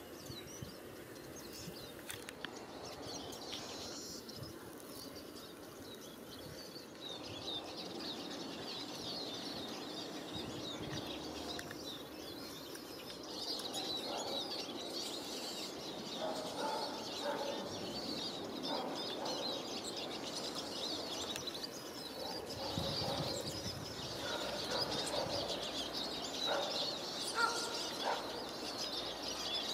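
Many small birds chirping continuously in the trees: a dense chatter of short, high calls. Irregular scratching and rustling noises join about halfway through and grow louder, with one sharp peak near the end.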